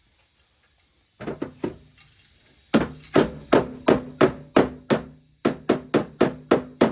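Body hammer striking sheet-metal body panel against a dolly to knock out a dent: a few light taps, then a steady series of sharp ringing blows about three a second, with a brief pause.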